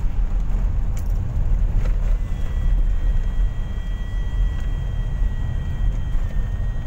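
Steady low rumble of a vehicle's engine and tyres heard from inside the cabin while driving. A faint, steady high whine joins about two seconds in.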